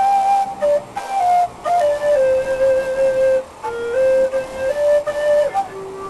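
Background music: a slow solo melody of long held notes, stepping up and down in pitch with short breaks between phrases.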